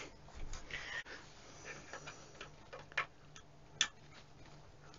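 Small clicks and taps of a screwdriver working at a control knob on the front panel of a Thurlby PL320 bench power supply, loosening the knob to take it off. Two sharper clicks come about three and four seconds in.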